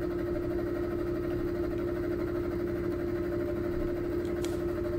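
A CNC mill's spindle is driving a high-speed steel dovetail cutter through a fixture block, cutting a dovetail. It makes a steady machining hum with one held pitch.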